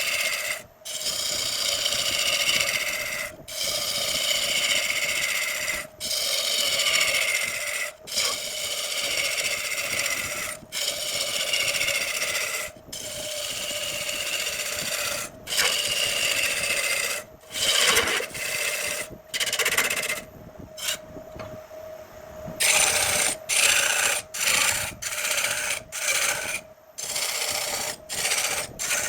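A turning tool cutting into jackfruit wood spinning on a wood lathe, in repeated passes of about two seconds with short breaks between them. Each pass is a scraping hiss that slides down in pitch, over a steady hum. In the last several seconds the cuts become short and quick.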